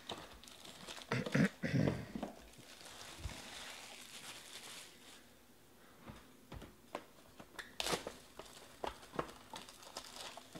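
Cellophane shrink-wrap crinkling as it is torn and pulled off a trading-card box, with two louder bumps about a second and a half in, then scattered light clicks and taps as the cardboard boxes are handled.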